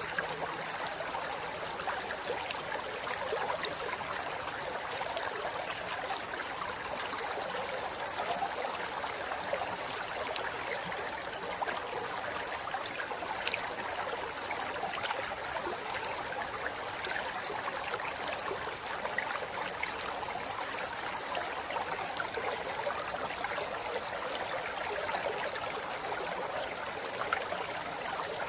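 River water flowing steadily over rocks, a continuous babbling rush with small splashes.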